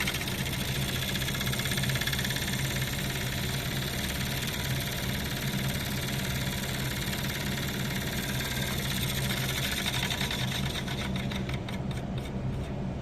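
A fan running with a steady hum and rushing hiss, making the noise that it is being recorded for. A rapid ticking or rattling comes in over the last couple of seconds.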